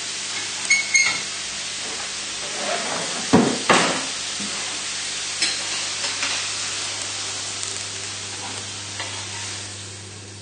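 Steaks sizzling in a hot frying pan while they are lifted out, with several metal clinks and knocks of a utensil against the pan, the loudest two a little over three seconds in. The sizzle dies down near the end.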